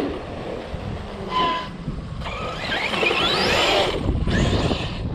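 ARRMA Outcast 8S RC car's brushless motor whining, its pitch rising several times as it accelerates, over a low rumble.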